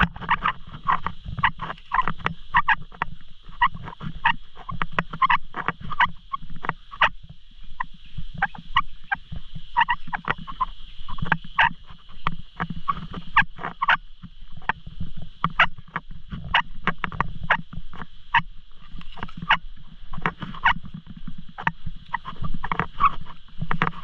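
Steady high-pitched insect drone from the tropical garden. Over it come many short, sharp sounds, several a second at irregular spacing.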